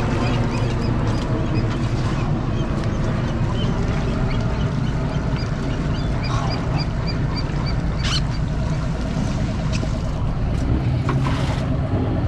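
Fishing boat's engine idling with a steady low rumble. Rows of short, high animal calls repeat a few times a second over it, and there are a couple of sharp clicks.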